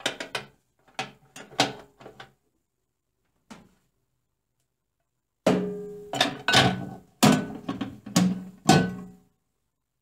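Plastic turntable roller ring of a microwave clattering and clicking against the cavity as it is handled. After that comes a run of about seven sharp, hollow knocks that each ring briefly.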